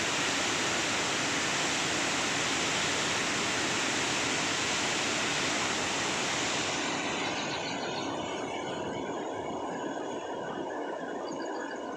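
Flood water rushing out through a dam's open spillway gates: a loud, steady rush of noise that drops to a quieter rush about seven seconds in, with faint high tones on top.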